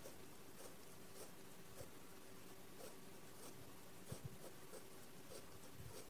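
Faint, regular wet clicks of a cat licking at the flesh of a watermelon, about one and a half licks a second.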